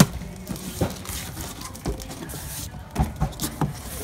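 Hands handling a cardboard box wrapped in plastic film: irregular knocks and bumps against the cardboard with crinkly rustling of the plastic, a cluster of knocks near the end.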